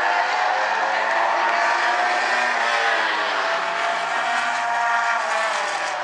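Several Bumblebee-class compact race cars running together in a pack around the oval, their engines droning steadily with overlapping pitches that shift slightly as they go.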